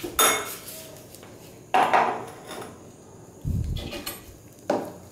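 Four separate knocks and clatters of small items being handled on a bench, as a sheet of paper is laid on a digital scale and a plastic reagent bottle is picked up; the third, about three and a half seconds in, is a dull thump.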